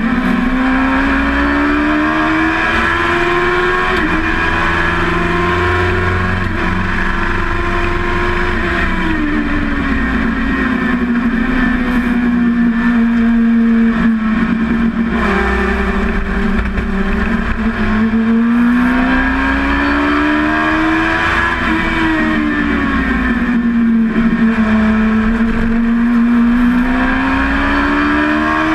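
Dwarf race car's engine heard from inside the cockpit at racing speed, its pitch climbing under throttle and dropping off into the corners several times over, with steady wind and road rush underneath.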